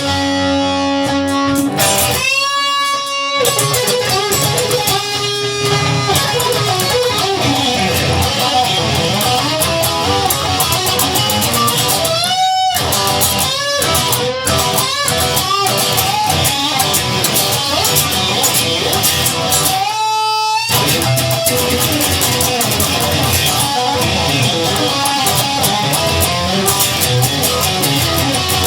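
Instrumental blues music: an electric guitar leads with bending notes over a backing of bass and rhythm, with no singing.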